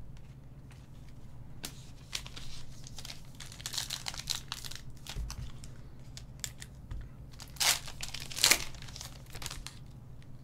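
Foil Panini Select trading-card pack crinkling as it is slit open with a box cutter and pulled apart, with the cards rustling against each other. There are two loud, sharp crinkles about 7.5 and 8.5 seconds in.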